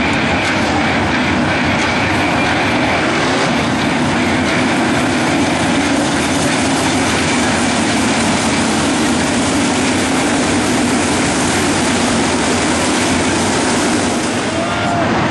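A field of dirt late model race cars, their V8 engines running together as the pack circles the dirt oval, making a loud, steady, dense drone.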